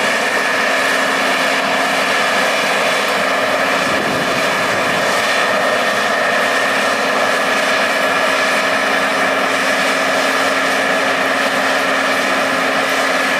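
Tatra 813 trial truck's diesel engine running steadily under load as the truck crawls over a steep crest, a constant engine note with a high whine above it.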